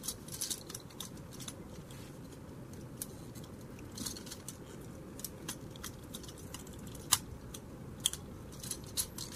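Hard plastic parts of a Transformers Studio Series 86 Hot Rod figure being handled and clipped together into car mode: scattered small clicks and snaps, the sharpest about seven seconds in.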